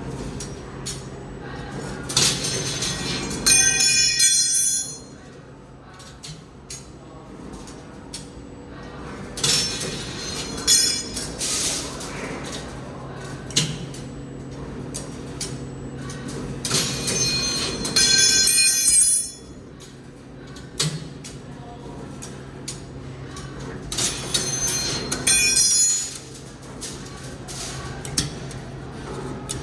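2D CNC wire bending machine working aluminium wire through repeated bending cycles over a steady hum. Four times, about seven seconds apart, it gets loud with clicks and a high-pitched squeal.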